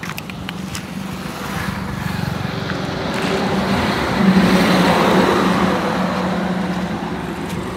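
A motor vehicle passing on the road close by. Its engine hum and tyre noise swell to loudest about five seconds in and then fade.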